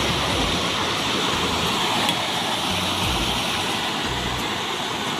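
Steady rush of a waterfall's falling water, with a few short low rumbles of wind on the microphone.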